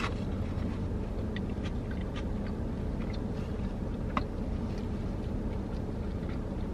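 Steady low hum inside a parked car's cabin, with faint wet chewing clicks as a sub sandwich is eaten and a brief crinkle of paper sandwich wrapper about four seconds in.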